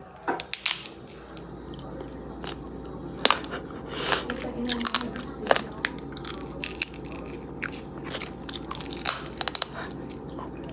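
Biting into and chewing a piece of crispy roast pork skin held right at the microphone: a run of irregular sharp crunches and crackles as the crackling breaks between the teeth.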